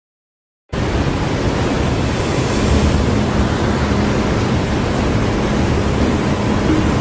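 Loud, steady rushing of water swirling down into a large whirlpool above a dam's flood-release gates. It starts suddenly just under a second in, after silence.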